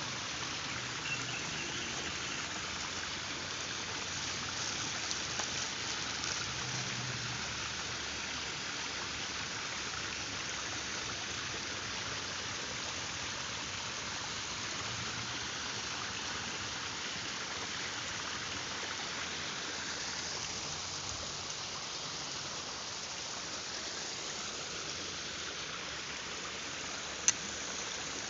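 River water flowing steadily, an even rushing hiss. A single sharp click near the end.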